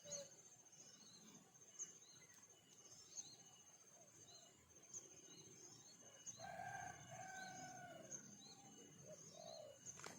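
Faint rooster crow, drawn out in two parts, about six seconds in. Behind it runs a steady high-pitched trill with a short chirp about once a second.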